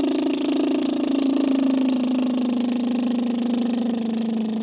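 A woman's voiced lip trill: lips bubbling with a hummed tone in one long, unbroken exhale, the pitch sliding slowly down.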